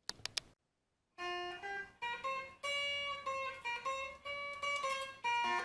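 Outro music: a plucked guitar playing a melody of single picked notes, starting about a second in, after a few quick clicks.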